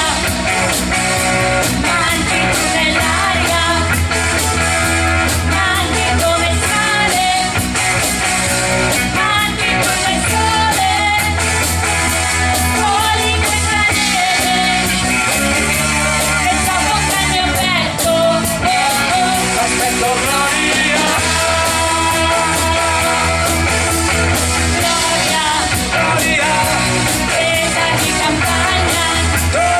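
Rock band playing a song with a lead singer, a steady bass line shifting notes every few seconds under the voice.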